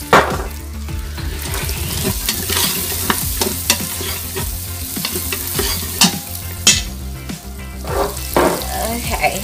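Ground beef sizzling in oil in the stainless steel inner pot of an Instant Pot on sauté, stirred with a plastic rice paddle. The paddle scrapes and taps sharply against the pot several times, loudest right at the start, over a steady sizzle and low hum.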